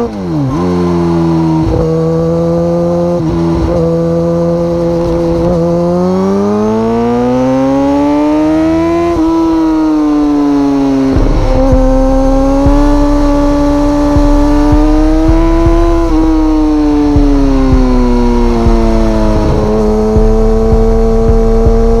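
Suzuki GSX-R1000 K2's inline-four engine on the move, revs climbing under acceleration and dropping at gear changes, with a sharp dip just after the start and another about nine seconds in. From about eleven seconds in a heavier low rumble joins the engine note, and the revs rise and ease off again.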